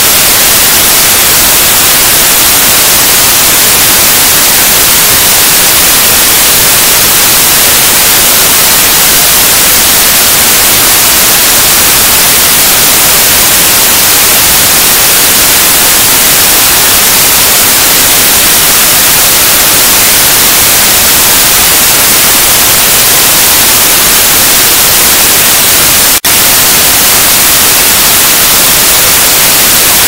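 Loud, steady white noise: an even hiss, brightest in the highs, with a split-second dropout near the end.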